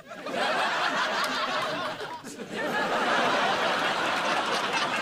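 Sitcom studio audience laughing after a punchline, in two swells with a short dip about two seconds in.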